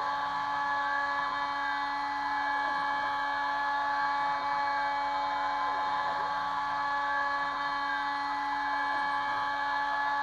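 Kress FME 800 spindle on a Stepcraft 2/420 CNC router, running at 11,000 rpm while milling aluminium. It gives a steady whine of several tones at once, with faint tones sweeping up and down underneath.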